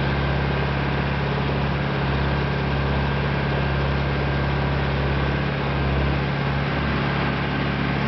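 International Harvester 574 tractor engine running steadily under load, pulling a two-bottom plow through the soil.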